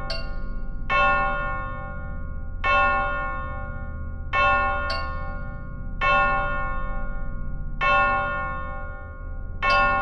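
Electroacoustic music: a bell-like tone rich in overtones struck at a steady pace, about every 1.7 s, each strike ringing and fading. A continuous low drone runs underneath, and a brief high glint comes with every third strike.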